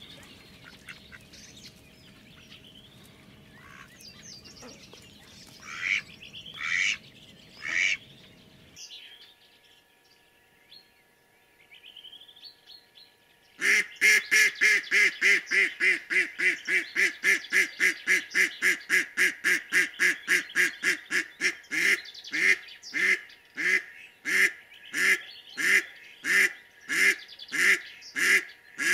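Mallard-type decoy duck hen quacking in a long, loud run of calls about halfway in, fast at first and then slowing: the calling series that draws drakes to the decoy. Before it, faint songbirds call.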